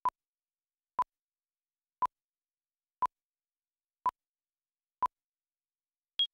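Countdown leader beeps: six short, identical mid-pitched beeps one a second, counting down the seconds to the start of a news tape. A last, higher beep about a second after the sixth marks the final count.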